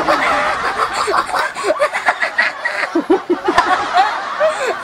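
A boy laughing hard, a run of short repeated laughs.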